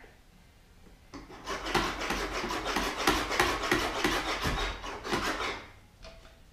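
A sand-filled vacuum foot-casting cushion crunching and rustling under the foot as it is worked and firmed up to take the impression. The dense gritty rubbing starts about a second in, runs for about four and a half seconds, then fades out.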